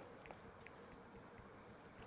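Near silence: room tone with a faint steady hum and a couple of faint small clicks.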